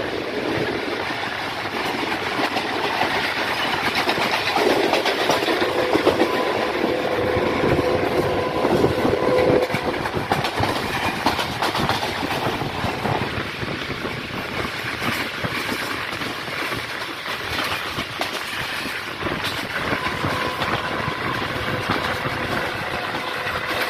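Passenger train in motion heard from aboard: coach wheels clattering over the rail joints over a steady rumble and rush of wind.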